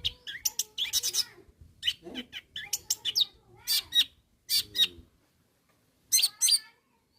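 Long-tailed shrike (cendet) in full 'gacor' song, the calling-out song meant to provoke rival shrikes: rapid clusters of sharp, high notes mixed with a few lower warbled phrases. It pauses for about a second, then gives one last short burst before falling quiet near the end.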